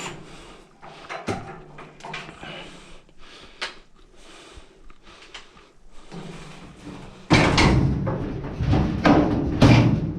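Dryer parts being handled during disassembly: scattered clicks and knocks of metal and plastic pieces, then from about seven seconds in a sudden, louder, continuous clatter and scraping.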